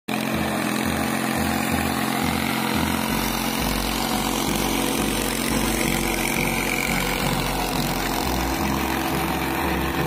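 Sonalika 22 hp tractor's diesel engine running steadily under load while pulling a mouldboard plough through the soil.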